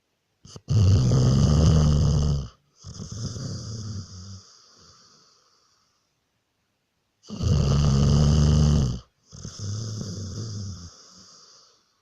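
Snoring in two slow breath cycles: each is a loud snore lasting about two seconds, then a quieter, longer one, with a gap of a couple of seconds before the next.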